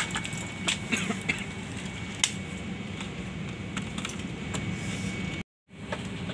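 Airliner cabin ambience while parked at the gate: a steady rush of ventilation air with a thin high whine, broken by scattered light clicks and knocks. The sound drops out for a moment about five and a half seconds in.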